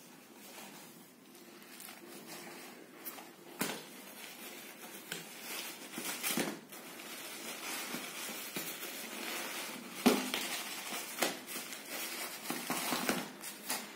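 Tissue paper and wrapping crinkling and rustling as a running shoe is handled, with scattered sharper clicks and knocks; the loudest knock comes about ten seconds in.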